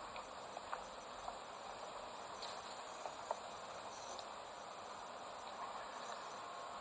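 Steady chirring of insects, with a few faint clicks.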